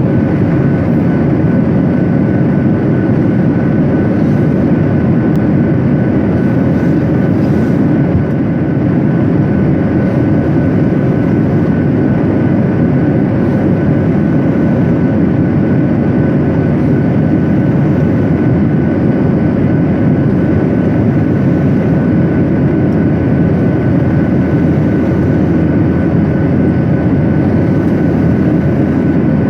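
Airliner cabin noise: the steady, unbroken drone of the engines and airflow in flight, with a faint steady whine above it.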